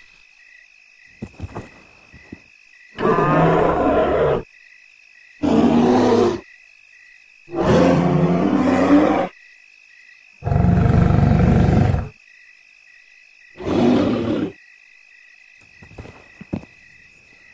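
Five deep creature roars and growls from sound effects dubbed onto toy prehistoric reptiles, each one to two seconds long with pauses between. Behind them runs a faint, steady, evenly pulsing chirp of night insects.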